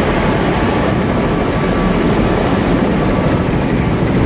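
Helicopter engine and rotor running, heard from inside the cabin: a loud, steady noise with a thin high whine over it.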